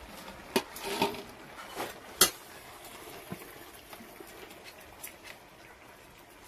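Metal cookware clinking: a few sharp knocks of a metal utensil against a metal cooking pot, the loudest about two seconds in, then only faint background.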